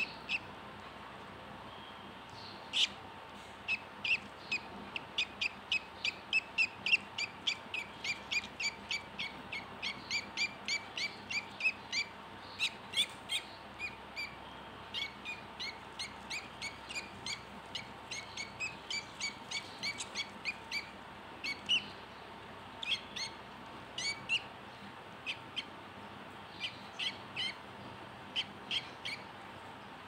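Budgerigar chicks a few days old peeping: a long series of short, high chirps, about two or three a second with brief pauses, the begging calls of nestlings.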